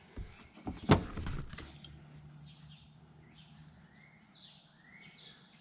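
A single sharp knock about a second in, then birds chirping faintly in the background.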